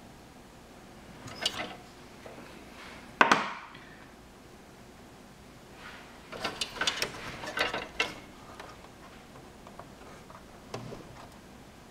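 Hard parts being handled during repair work on a computer: scattered clicks and knocks. There is one loud knock about three seconds in and a quick cluster of clicks and rattles a little past halfway.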